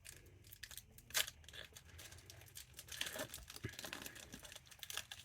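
Foil Pokémon booster pack wrapper crinkling faintly as it is torn open and handled, with scattered small crackles and one sharper crackle about a second in.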